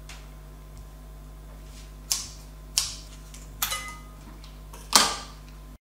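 Four sharp clacks of hard kitchen objects handled on the counter while a carton of cream is being opened. The third clack has a short metallic ring, the last is the loudest, and the sound cuts off abruptly just before the end.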